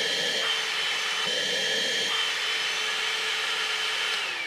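Bauer 20-volt cordless handheld vacuum running with a steady high whine, then switched off near the end, its motor winding down in pitch.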